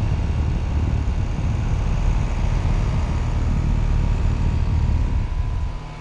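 A 2-ton, 14 SEER American Standard Silver Series central air conditioner condenser is running. Its top fan blows hot discharge air up across the microphone, giving a steady, gusty rumble.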